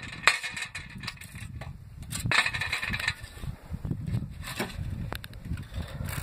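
Scattered clicks and knocks of small hard parts being handled, with a short burst of rattling and scraping about two and a half seconds in.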